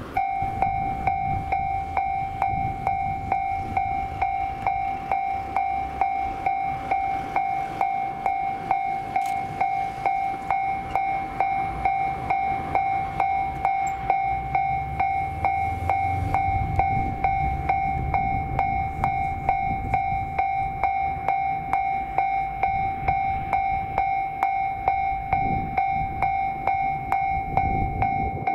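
Japanese railway level-crossing warning bell ringing in an even rhythm, about two strikes a second, signalling that a train is approaching. A low rumble runs underneath and grows stronger about halfway through.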